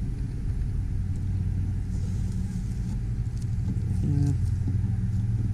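A steady low machine hum drones throughout, with a few faint light ticks over it.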